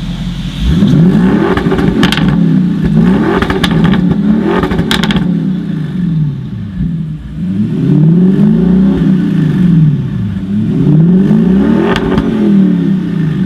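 Audi RS6 Performance's 4.0 TFSI twin-turbo V8 through an Akrapovic exhaust, revved again and again, the pitch rising and falling with each rev. There are a few sharp cracks among the revs and a short lull near idle in the middle.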